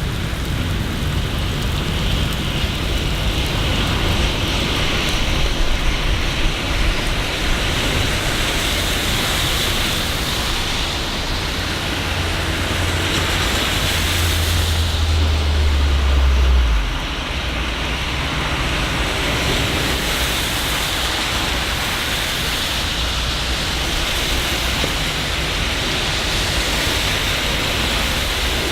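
Steady rain hiss in a city street. A low rumble swells over several seconds past the middle and then cuts off suddenly.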